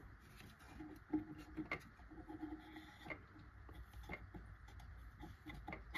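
A handful of faint clicks and light knocks as the record player's platter and rubber mat are gripped and lifted off the spindle, the clearest about a second in and just before the end.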